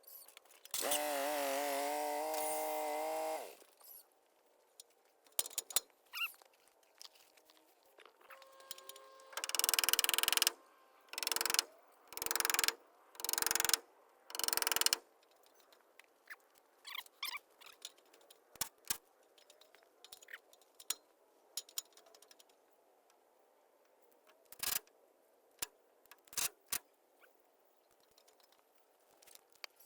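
A sheep bleats once, a wavering call about two and a half seconds long. Later comes a run of five short bursts of noise about a second apart, then scattered clicks and knocks.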